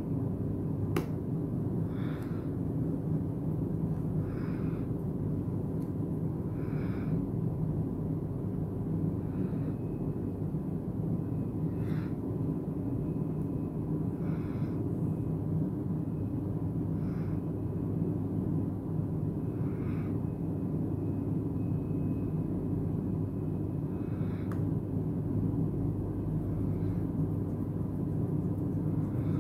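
A steady low background rumble and hum, with faint short clicks and scrapes every two to three seconds from small hand tools working on a smartphone.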